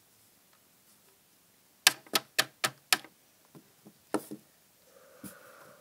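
Five quick, sharp knocks on the door of a plastic toy house, then a few softer clicks of the toy being handled.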